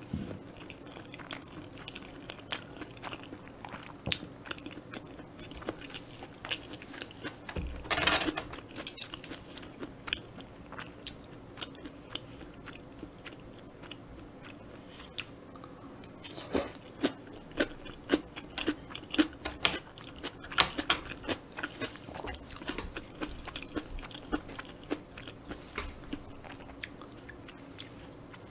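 Close-miked chewing of cheese-and-egg kimchi fried rice, with many wet mouth clicks and smacks. There is a short noisy burst about eight seconds in. From about halfway, denser and louder crunching follows as a piece of cabbage kimchi is chewed.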